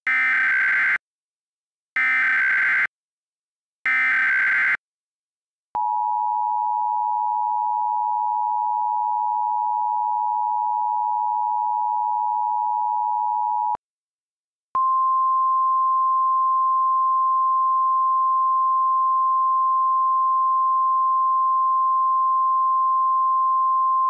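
Emergency Alert System tones. Three short bursts of digital header data open the alert, about a second apart. Then comes the two-tone attention signal, held steady for about eight seconds, and after a brief gap a single steady tone at slightly higher pitch.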